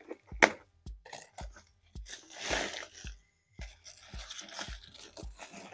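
Crumpled packing paper rustling and crinkling as it is pulled from around plants in a cardboard box, with a few sharp crackles. Background music with a steady low beat runs underneath.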